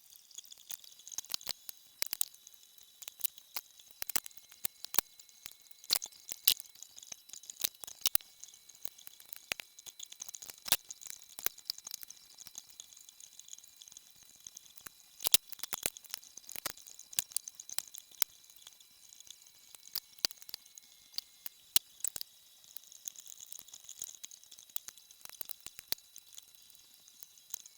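Irregular sharp clicks and ticks of hands and tools working on engine parts, some louder than others, over a faint steady hiss.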